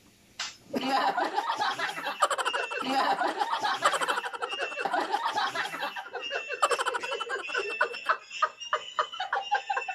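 Several people laughing hard together, breaking into laughter about a second in and carrying on in uneven bursts.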